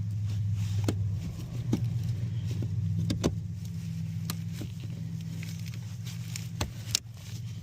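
Mazda CX-5 engine running at a steady idle, started after a new brake switch was fitted, with a few sharp clicks over it.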